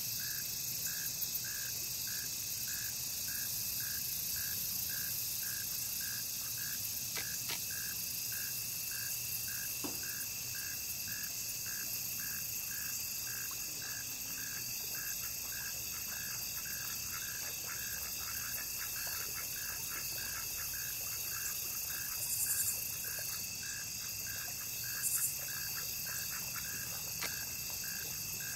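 Outdoor insect chorus: a steady high-pitched drone of crickets and other insects, with a short call pulsing evenly about twice a second under it. Two brief louder high buzzes come near the end.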